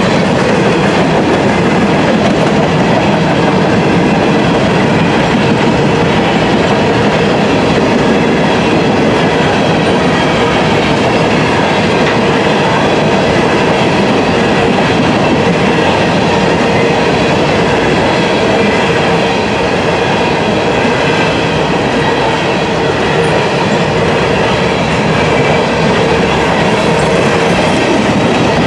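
Covered hopper cars of a freight grain train rolling steadily past, a continuous rumble and clatter of steel wheels on the rails.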